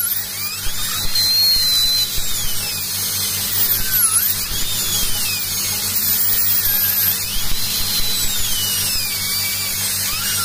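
High-speed air-turbine dental handpiece with water spray whining as its bur cuts through a porcelain-fused-to-metal crown to remove it. The whine's pitch slides up and down as the bur bites and frees.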